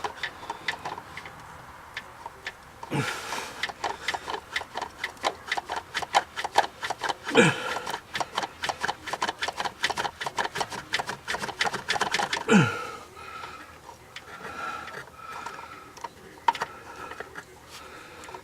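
Pliers working a Dodge Dakota distributor rotor that is rusted onto its shaft: a fast run of clicks, about six a second, for several seconds, broken by three short squeaks that fall in pitch, then scattered single clicks. The rotor is stuck on the rusty distributor shaft and will not come off.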